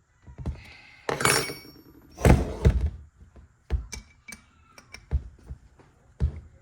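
Metal hand tools clanking and knocking on metal: a ringing metallic clatter a little after a second in, a heavier knock and clatter just after two seconds, then several single sharp knocks.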